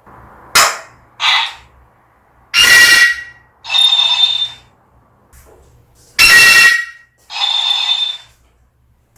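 Parrot giving a series of loud, shrill calls: two short ones in the first second and a half, then two pairs of louder screeches around three and seven seconds in, each pair a harsh cry followed by a piercing, steady whistle-like tone.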